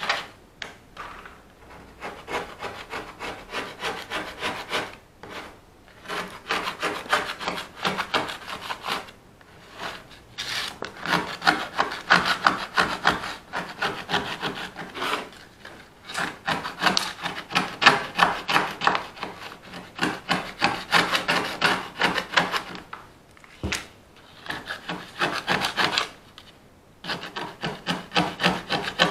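Rapid back-and-forth scraping strokes of a hand tool worked on a small part, in runs of several seconds broken by short pauses. A single sharp click sounds about two-thirds of the way through.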